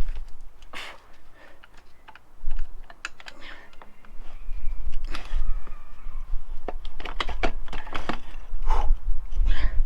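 Scattered light clicks and small metal knocks as a motorcycle rear wheel, with its taped-on spacers, is worked into place by hand. A low rumble runs underneath, and the clicks come thicker in the second half.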